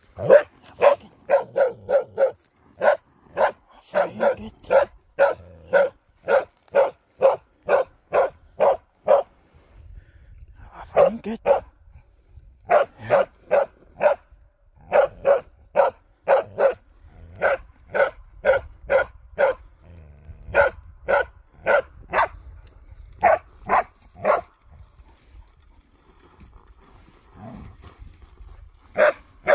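Karelian bear dog barking steadily at a moose training dummy, about two barks a second. The barks come in long runs with short breaks, then a longer lull before the barking starts again near the end: the dog is baying the dummy as it would hold a moose at bay.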